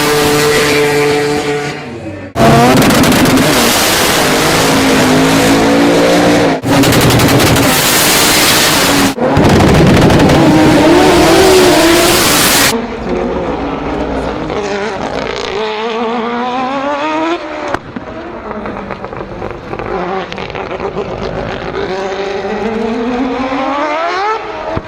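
Rotary-engined cars revving and running hard in a string of short clips: first a steady held rev, then loud full-throttle runs, and in the second half engine pitch repeatedly rising and falling.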